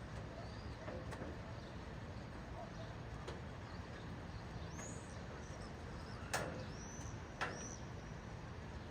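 Steady rain hiss, with a bird giving a few short high chirps in the second half. Two sharp taps about a second apart near the end are the loudest sounds.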